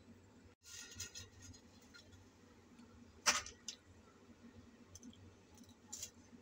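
Dry spaghetti strands clicking and rattling against the pot rim as the bundle is lowered into hot water. The sharpest click comes about three seconds in, with smaller ones around one and six seconds, over a faint steady low hum.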